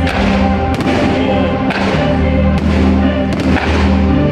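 Loud music with aerial fireworks shells bursting over it: several sharp bangs about a second apart.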